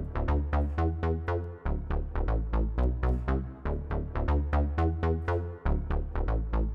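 Electronic synth bass line playing a repeating riff of short, punchy notes, about four a second, heavy in the low end. It is processed through the Waves SSL EV2 channel strip plugin with its preamp driven into a gritty distortion.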